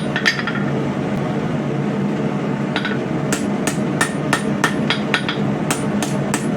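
A 3-pound blacksmith's hammer striking hot coil-spring steel on an anvil, smoothing the edge bevel of a knife blade. Two blows at the start, a pause of about two seconds, then a steady run of about three ringing blows a second, over a constant hum.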